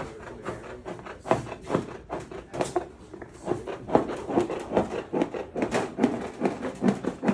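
Hand snips cutting through sheet metal: a run of short, sharp crunching snips, quickening to about three or four a second about four seconds in.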